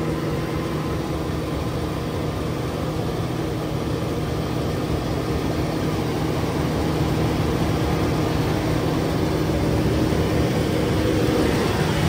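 Combine harvester running steadily at work, a constant heavy engine drone with a steady hum that grows slightly louder toward the end.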